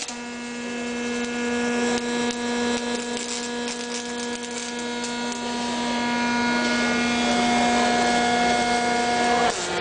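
Robotic MIG welding arc burning steadily on the steel of an excavator arm: a constant high buzz with a sizzling crackle, cutting off near the end.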